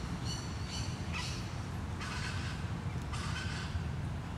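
Harsh, cawing bird calls: a pitched call at the start, then three rougher calls about a second apart, over a steady low rumble of distant city traffic.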